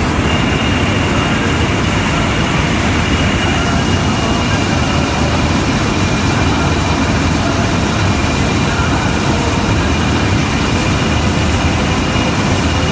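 Combine harvester running steadily, its engine and threshing machinery making a loud, constant drone with a thin, steady high whine above it.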